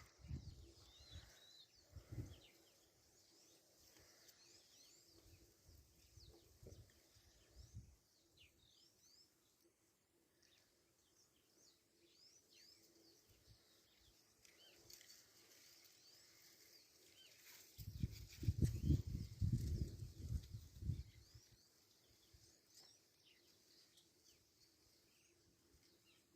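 Faint birds chirping over a quiet rural background. About two-thirds of the way through comes a few seconds of louder low rumbling noise.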